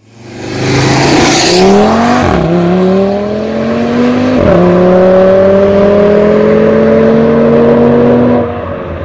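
Audi TT RS's turbocharged 2.5-litre five-cylinder accelerating hard, its pitch climbing through the gears with two quick upshifts, about two and four and a half seconds in, then a long pull in the next gear before it eases off near the end.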